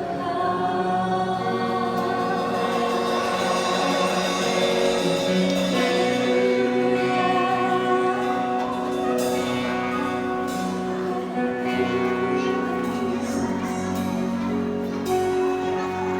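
A choir singing a Christian song, with long notes held in harmony.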